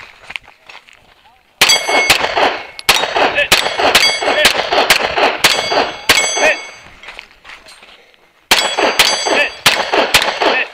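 Rapid semi-automatic pistol fire at steel plate targets. Two quick strings of shots, separated by a pause of about two seconds, with hit plates ringing with a metallic clang.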